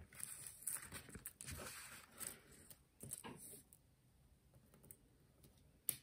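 Faint rustling and scratching of paper craft pieces being handled: mini foam dimensionals taken from their sheet and pressed onto the back of a die-cut paper flower. The small noises come in a quick run over the first few seconds, then stop, with one sharp click near the end.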